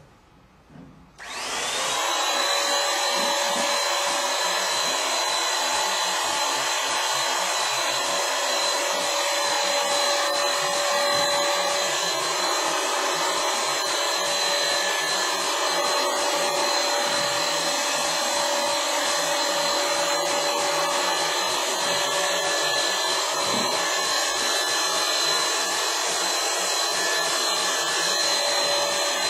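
Handheld electric paint sprayer switched on about a second in, then running steadily with a high whine while it sprays primer onto the cabinet.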